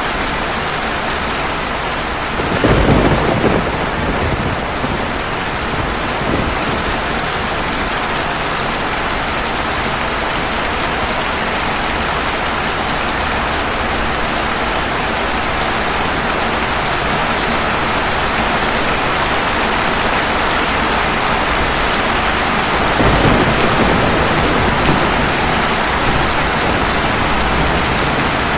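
Steady heavy rain falling on pavement, with a rumble of thunder a few seconds in and another near the end.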